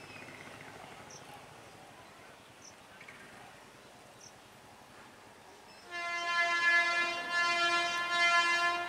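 Horn of an approaching Alstom electric multiple unit train, sounding about six seconds in as one steady, single-pitched blast of about three seconds, broken twice by brief dips. Before it, only faint background with a soft short chirp repeating about every second and a half.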